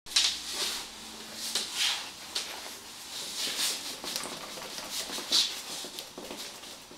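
Irregular scuffs and rustles of a chocolate Labrador moving about on a laminate floor, with sharper, louder ones about a quarter second in, near two seconds and a little past five seconds.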